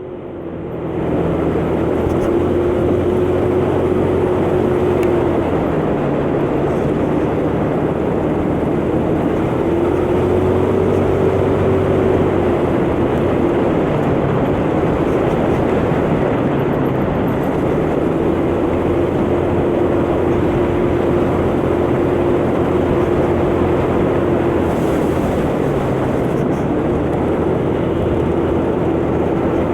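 125cc motor scooter engine running under way, its note holding steady for several seconds at a time and easing off in between, under a continuous rushing noise.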